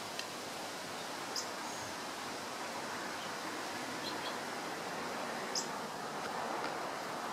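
Steady outdoor background hiss with a handful of short, high chirps from small birds scattered through it.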